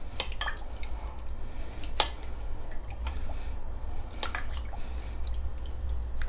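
A metal spoon stirring a thin sauce in a glass bowl: liquid sloshing with scattered clicks of the spoon against the glass, the sharpest about two seconds in, over a low steady hum. The stirring is dissolving coconut palm sugar into the sauce.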